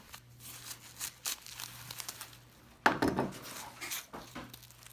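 Hammock nylon fabric and suspension line being handled and pulled open, rustling and crinkling, with one louder bump about three seconds in, over a faint steady low hum.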